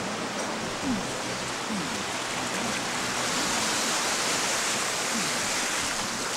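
Small ocean waves breaking and washing up a sandy beach: a steady rush that swells a little louder about halfway through.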